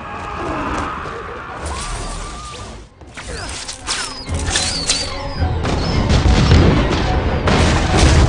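Film battle sound effects over orchestral music: sharp crashing impacts and blasts, building into a heavy, low booming rumble of explosions in the second half.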